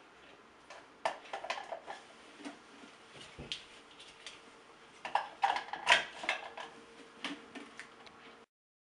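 A plastic toothbrush, toothpaste tube and toothbrush holder clicking and knocking against each other and a bathroom counter as they are handled, in two bursts of clatter about a second in and about five seconds in, the second louder. A faint steady hum runs underneath.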